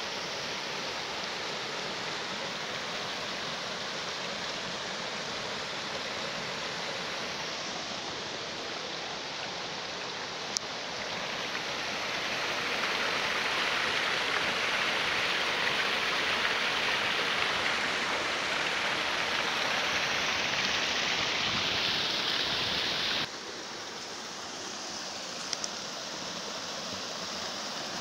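Water of a small mountain stream rushing over rocks and little cascades, a steady hiss that swells louder through the middle and drops off suddenly near the end.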